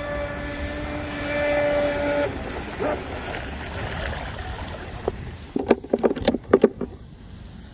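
RC speedboat's Leopard 3660 brushless motor whining at a steady high pitch on a fast pass, cutting off abruptly a little over two seconds in. A low hiss remains, with a few short sharp sounds near the end.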